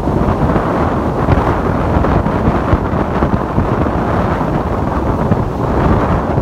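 Wind buffeting the microphone with a heavy low rumble, over the steady wash of ocean surf.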